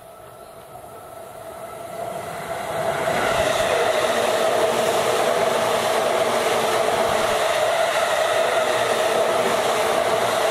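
Electric commuter train running past close by. Its rolling noise builds over the first three seconds, then holds loud and steady with a steady whine through it.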